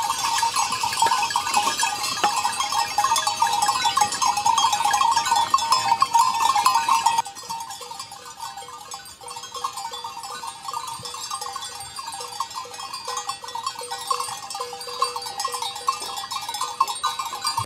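Many large livestock bells (campani) on a moving flock of sheep and goats, clanking and jangling in a dense, uneven tangle. About seven seconds in it drops suddenly to a softer, more distant jangle.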